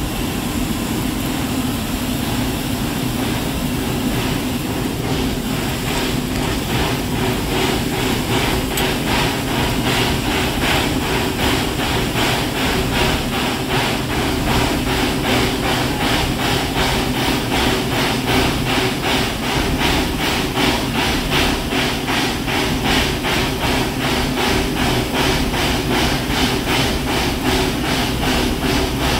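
A 1973 Crown Metal Products narrow-gauge, propane-fired 4-4-0 steam locomotive chuffing as it pulls away. Its exhaust beats settle into an even rhythm a few seconds in, over a steady hum.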